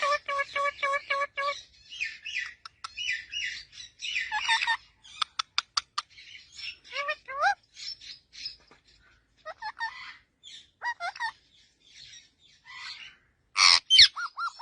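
Parrot calling in a run of varied chirps and whistles: a quick string of repeated notes at the start, a burst of rapid clicks, short rising whistles, and a loud harsh squawk near the end.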